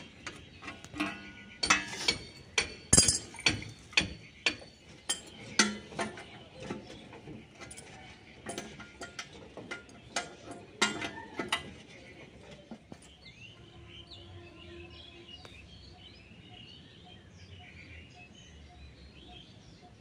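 Metal clinks and clicks of a wrench working the bolts on the steel wall-mount brackets for an air conditioner's outdoor unit, in irregular strokes for about the first twelve seconds. After that it goes quieter, with birds chirping.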